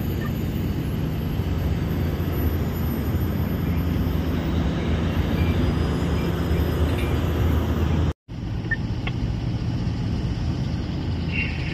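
Liebherr T282 diesel-electric mining haul truck's diesel engine running as the truck drives past, a steady deep hum. It cuts off abruptly about eight seconds in and is followed by a thinner, hissier engine noise from haul trucks further off.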